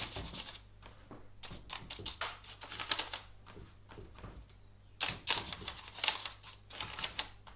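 Paintbrush dabbing and scraping oil paint onto brown paper: quick, scratchy taps and strokes in irregular clusters, sparser around the middle while the brush is worked on the palette, then busy again.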